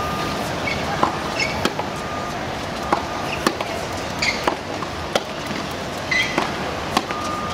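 Tennis balls struck by racquets and bouncing on a hard court during a baseline rally: a string of sharp pocks spaced about half a second to a second and a half apart, over a steady background of outdoor crowd noise.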